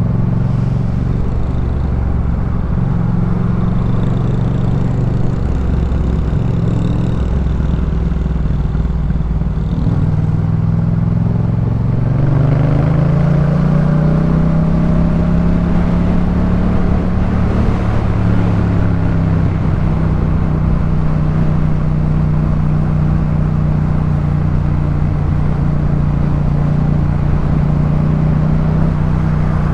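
Yamaha MT-07's parallel-twin engine breathing through a Jeskap K4 full aftermarket exhaust while riding. It runs at low revs, rises in pitch about twelve seconds in as the bike accelerates, then holds a steady cruise.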